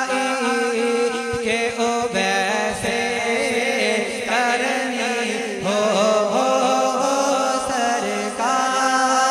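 Solo male voice singing a naat, an Urdu devotional song, into a microphone. The voice holds long notes and slides between them over a steady low drone.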